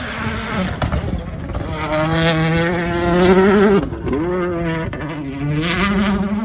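Hyundai i20 WRC rally car's turbocharged four-cylinder engine at full throttle on a stage, revs climbing hard for about two seconds. The revs then fall sharply just before the middle and climb again toward the end.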